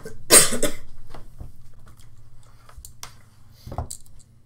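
Handling noise: a loud scraping rustle about half a second in, then a few scattered light clicks and knocks, as the handheld camera is moved.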